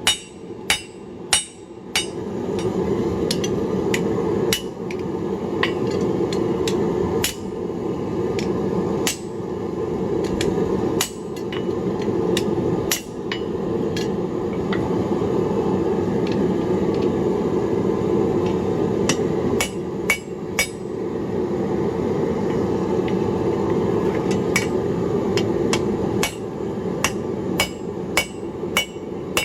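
Hammer blows ringing on blacksmith tongs over an anvil as the jaws are reset to grip thinner steel. Three quick loud strikes open it, then irregular blows every second or two. A steady low rushing noise runs underneath from about two seconds in.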